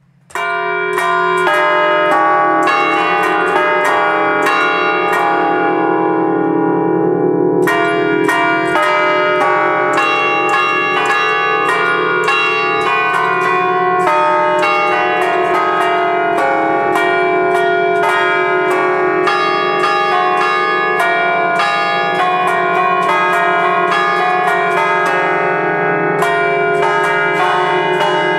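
A five-bell ring of bronze church bells in D-flat, cast by the Fratelli Ottolina in 1932, played from a baton keyboard: the clappers strike in quick festive melodic patterns over the bells' continuous ringing hum. The strikes let up for about two seconds a quarter of the way in, then carry on.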